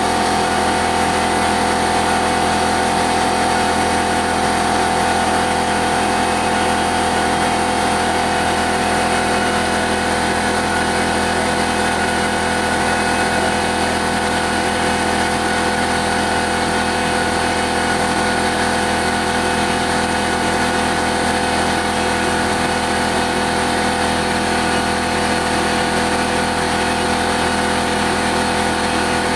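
CNC 3020 router's 800 W spindle, at about 20,000 rpm, driving a .093" four-flute end mill that faces off 6061 aluminium round stock: a steady high whine over the continuous noise of the cut.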